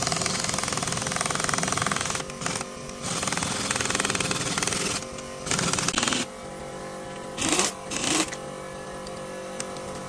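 Rapid mechanical rattling in bursts of a second or two, loudest in the first half, over a steady machine hum.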